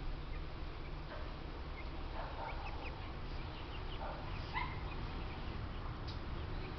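Ducks giving short, scattered calls as they forage, a cluster about two seconds in and more around four seconds, over a steady low background noise.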